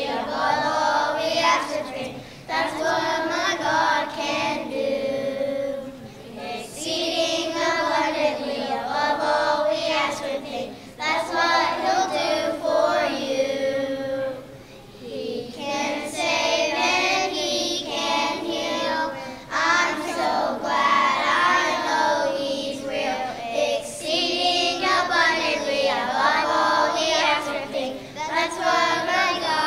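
A group of young children singing a song together, phrase after phrase with brief pauses between lines.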